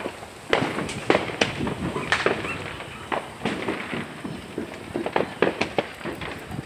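Neighborhood fireworks and firecrackers going off: many sharp pops and bangs at uneven intervals, some much louder than others.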